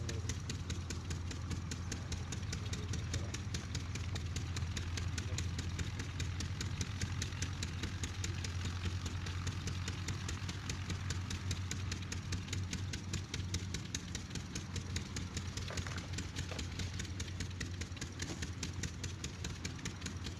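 Old Kirloskar 8 hp stationary single-cylinder diesel engine running steadily at idle, with an even, rapid firing beat and a low hum.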